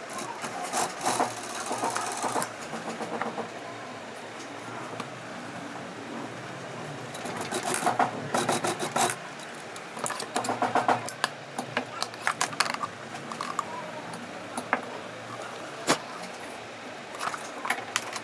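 Industrial sewing machine stitching leather in several short runs of rapid ticking, stopping and starting as the panel is guided, with a sharp click near the end.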